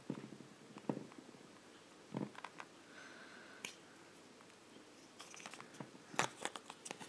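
Faint squishing and handling noises of Play-Doh being peeled away from a plastic surprise-egg capsule, with scattered light clicks and taps. The sharpest tap comes a little after six seconds in.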